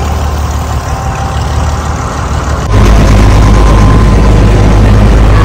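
Inboard engine of a small passenger motor boat running steadily, then abruptly louder and deeper about three seconds in.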